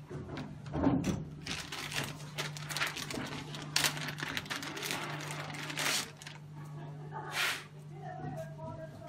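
Clear plastic bag crinkling and rustling as a coiled grounding cable is unwrapped and handled: a run of short crackling rustles, over a steady low hum.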